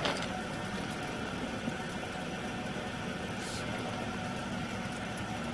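A steady engine hum, like an engine idling, with a brief click at the start and a short hiss about three and a half seconds in.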